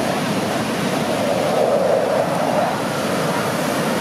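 Ocean surf breaking and washing up the shore, a steady rushing noise that swells a little about halfway through.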